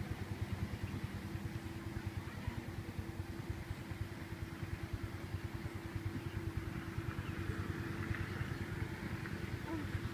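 A small engine running steadily at an even pace, a low hum that does not change.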